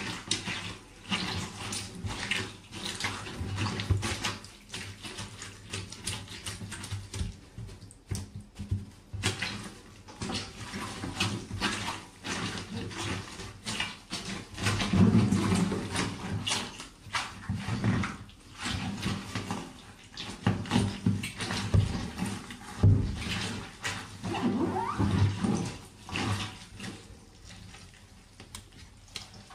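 Rubber boots treading and grinding a wet mash of vegetables and food in a puddle of liquid: irregular squelching, squishing and crackling under the soles, with heavier squelching steps around the middle.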